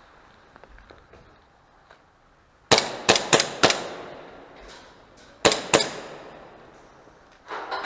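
Airsoft guns firing with a sharp echo off hard walls: a quick string of about five shots around three seconds in, two more shots a couple of seconds later, and a denser rattle of fire starting near the end.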